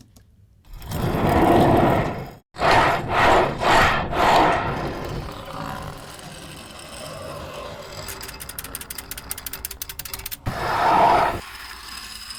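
Sound effect of small cartoon cars rolling and grinding past. There are several loud rough swells, then a lower steady rolling with a run of rapid ticks, and another swell near the end. The effect was built from a wooden toy cart rolling on bearings and a tile cutter.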